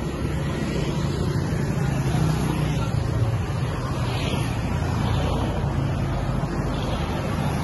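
A motor vehicle engine idling steadily: a low hum under an even hiss.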